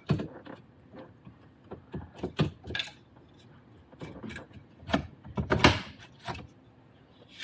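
Plastic interior bracket and trim pieces being handled and worked loose: a string of irregular clicks, taps and rattles, loudest about five and a half seconds in.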